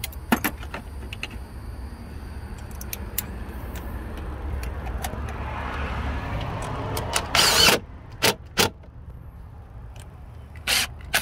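Cordless power tool driving an 8 mm socket on the intake duct's worm-drive hose clamp screws, run in short trigger bursts: one longer spin about seven seconds in, then several quick blips near the end. Light clinks of the socket and tools on metal come between the bursts over a steady low rumble.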